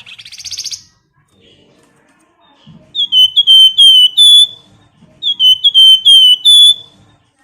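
Flamboyan songbird singing: a short buzzy trill at the start, then two phrases of clear, flute-like whistled notes, each about six notes long and ending on a higher note.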